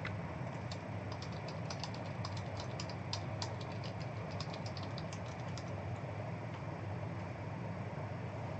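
Typing on a computer keyboard: a quick, uneven run of light key clicks that stops about two-thirds of the way through, over a steady low hum.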